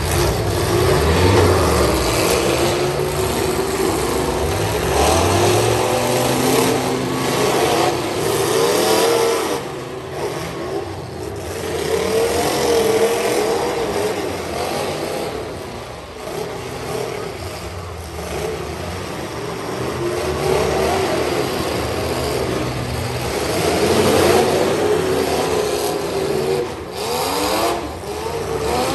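Several demolition derby pickup trucks' engines running and revving hard over and over, their pitch rising and falling, over a constant noisy din.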